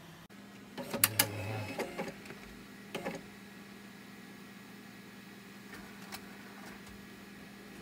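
Rimage 2000i CD/DVD duplicator's disc-handling mechanism at work: a quick run of mechanical clicks and knocks with a brief motor whir between about one and three seconds in, over the machine's steady low hum.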